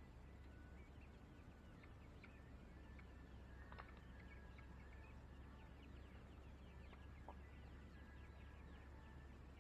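Faint, quick chirps of birds, coming thicker in the second half, with a couple of light taps about four and seven seconds in.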